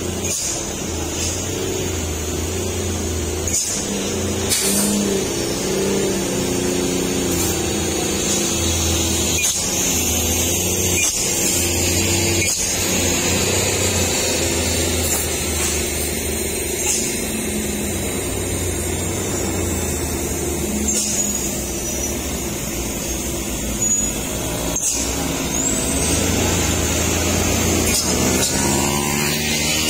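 Heavy diesel truck engines working hard in low gear round a steep hairpin climb, the engine note rising and falling. Near the end an engine revs up.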